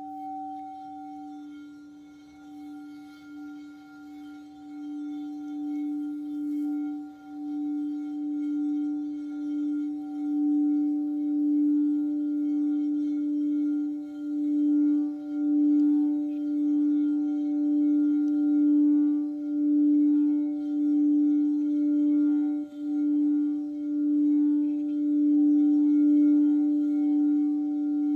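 Frosted crystal singing bowl tuned to D, sung by circling a wand around its rim: one sustained tone with fainter overtones that grows louder over the first ten seconds, then swells and dips about every second and a half as the wand goes round.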